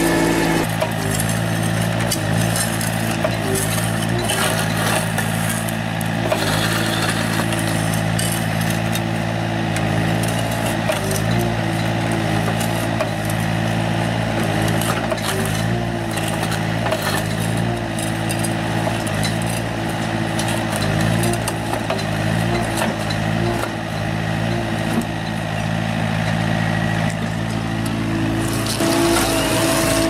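Excavator's diesel engine running steadily under load while its hydraulic cutter wheel grinds through asphalt, with a constant rough, crackly noise from the cut.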